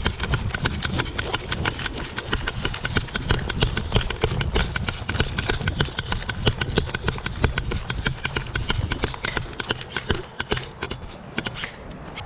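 Krytac airsoft LMG firing a long full-auto burst: a rapid, even rattle of shots over the electric gearbox's hum, stopping near the end.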